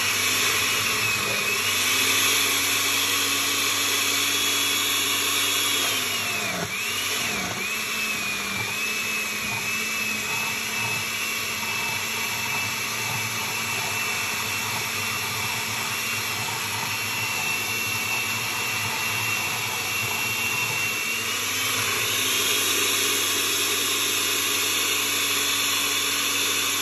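Oster countertop blender motor running, puréeing sautéed spinach and basil with milk and fresh cheese into a thick green sauce. The motor pitch drops about six seconds in with two brief dips as the load shifts, runs steady, then climbs again a little after twenty seconds.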